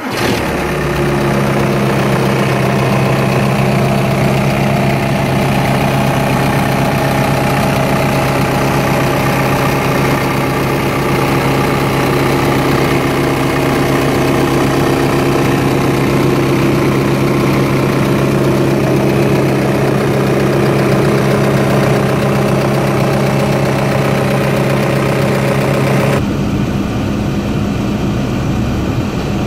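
Volkswagen Lupo's 1.7 SDI (AKU) naturally aspirated eight-valve four-cylinder diesel idling steadily at about 1,000 rpm, heard from the open engine bay. Near the end the sound turns duller as it is heard from inside the car's cabin.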